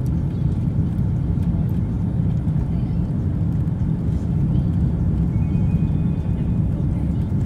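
Steady low rumble of an airliner's jet engines and airflow heard inside the passenger cabin during the descent to land.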